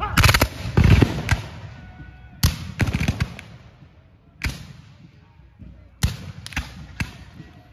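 Black-powder musket fire: about ten sharp shots at irregular intervals, thickest in the first second and a half, with a lull in the middle before more shots follow.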